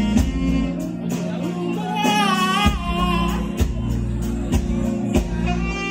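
Live band music: a woman singing over guitars, bass and keyboard with a steady beat, holding a wavering note about two seconds in.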